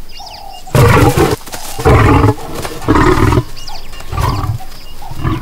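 Lions snarling and roaring at close quarters: four short, loud calls about a second apart, the last one weaker, in an aggressive face-off between lionesses and a male lion.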